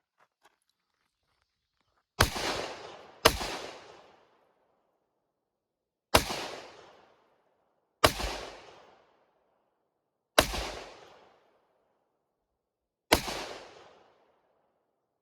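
AR-15 rifle firing six single shots at uneven intervals of one to three seconds, the first two close together. Each report trails off over about a second.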